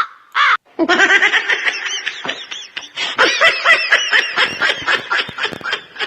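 Canned laughter sound effect, many people laughing together, played back from a Kesuosi T1 live-streaming sound card's built-in effect buttons. It starts about a second in after a few short yelps and fades near the end.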